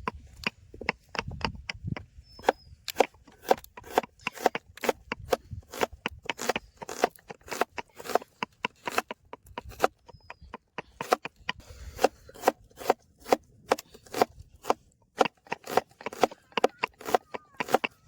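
Vegetables being chopped fast with a knife: a steady run of quick chopping strokes, about three a second.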